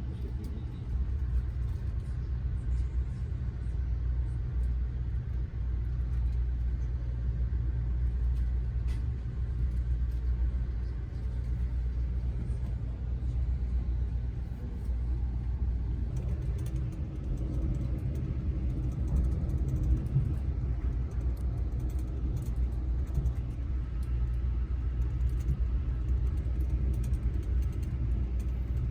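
Steady low rumble of an Amtrak passenger train in motion, heard from inside the passenger car.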